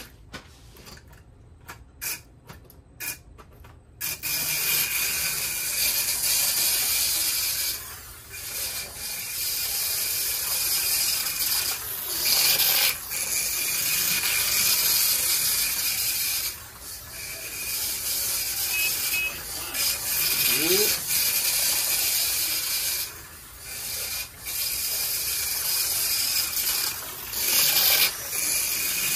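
Aurora Vibrator HO slot cars running on the track, their vibrator motors giving a steady mechanical buzz as the reed drives the wheels through a ratchet. A few sharp clicks come first, and the buzz starts about four seconds in. It swells and fades every few seconds as the cars lap past.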